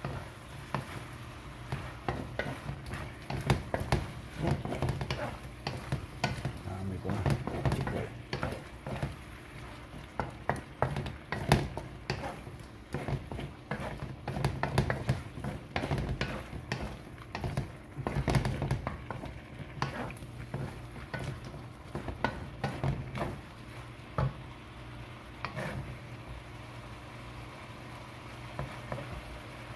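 Shrimp sizzling in a metal wok while a wooden spatula stirs and tosses them, scraping and knocking against the pan in irregular clatters that are busiest through the middle, over a steady low hum.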